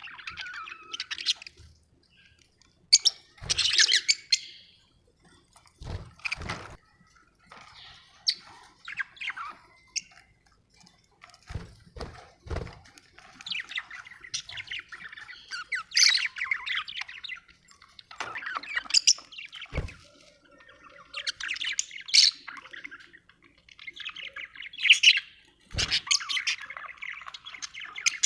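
Budgerigars chirping and warbling in bursts, with short squawks. A few sharp knocks are heard, about six times.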